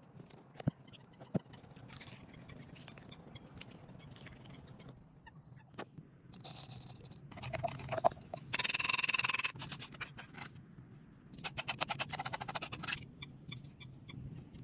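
Hand food preparation: quick, rhythmic scraping strokes in three bursts, after a couple of sharp clicks near the start.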